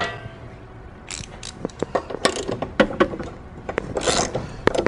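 Irregular clicks, knocks and scrapes of hand work on the tipped-over mower's steel blade and the wooden block wedged against it, with a longer rasping burst about four seconds in.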